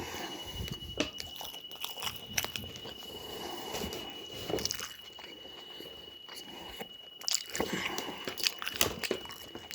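A person biting into and chewing an In-N-Out Animal Style burger, with irregular small clicks and mouth noises.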